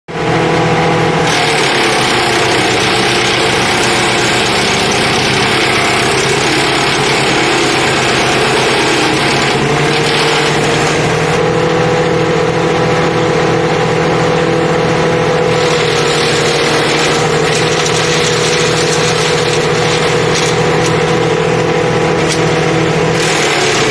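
Mighty Mac WC475 wood chipper-shredder's 11.5 hp engine running steadily at speed. A harsh rushing noise lies over it from about a second in to about ten seconds in, then returns off and on.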